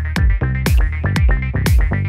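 Background electronic dance music: a steady kick drum about twice a second under synth chords and bright hi-hat hits.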